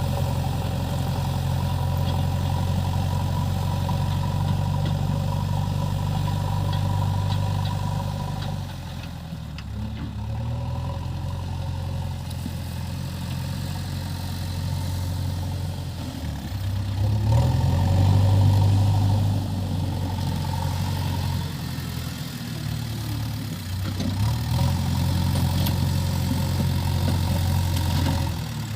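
Diesel engine of a JCB 3DX backhoe loader running, its note dropping and picking up again a few times as the machine works.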